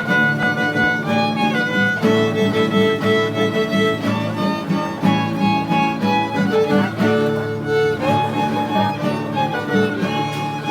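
Violin playing a melody over strummed guitar accompaniment, in a steady dance rhythm.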